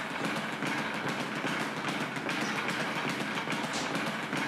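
Speed bag being punched, a fast, steady rattling rhythm of strikes.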